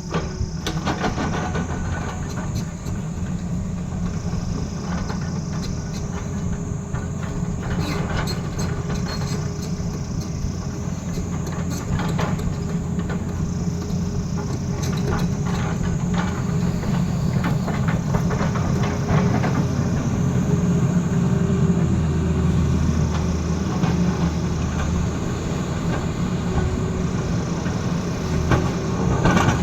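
Tata Hitachi excavator's diesel engine running steadily under load while it digs into a road, with scattered knocks and scrapes from the work. A high whine dips and returns every few seconds.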